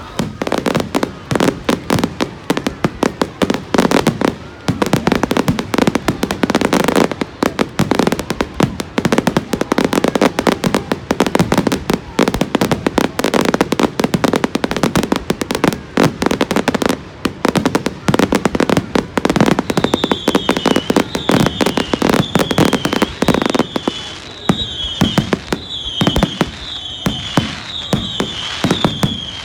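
Fireworks display: a dense, rapid barrage of bangs. In the last ten seconds a short falling whistle repeats over the bangs, about one and a half times a second.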